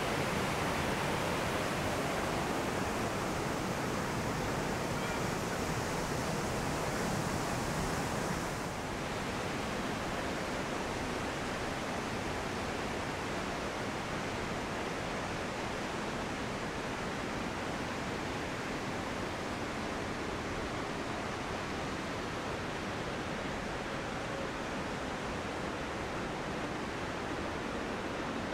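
Steady rushing of falling water from a waterfall, an even wash of noise. About a third of the way in it turns a little duller and quieter.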